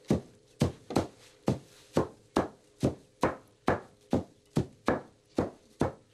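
Hand flails beating sheaves of grain on a barn threshing floor: several threshers striking in turn, a steady run of sharp knocks at about two to three a second.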